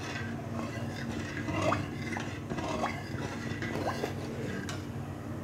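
Metal ladle stirring a thin dal in a large metal kadhai, scraping and clinking against the pan several times, over a steady low hum.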